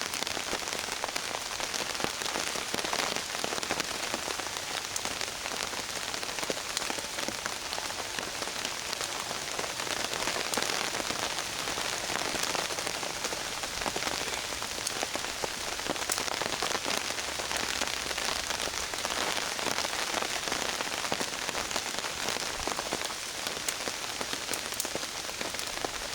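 Steady rain pattering on a tarp overhead, a dense hiss of many small drop ticks.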